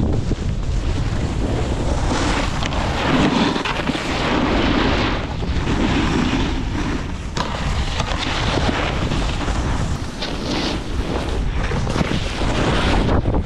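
Wind buffeting the camera microphone at riding speed, mixed with the hiss and scrape of snowboard edges on packed snow, swelling and easing with each turn.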